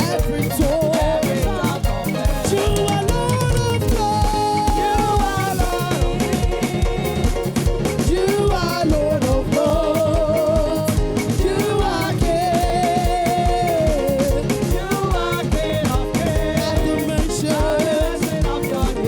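Upbeat African-style gospel praise music with a fast, driving drum beat and a singing voice carrying the melody.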